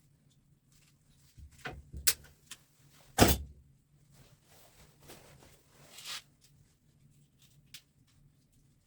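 Scattered clicks, knocks and short scrapes of metal parts and tools being handled while an electric fan motor is taken apart, with one loud knock about three seconds in.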